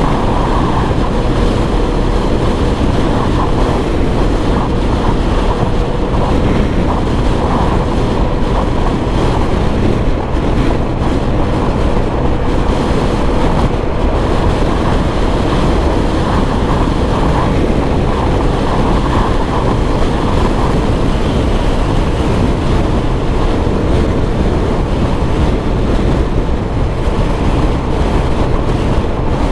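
Wind buffeting the microphone over the steady drone of a Suzuki Burgman 125 scooter's single-cylinder engine, cruising at highway speed. The rush is loud and even throughout.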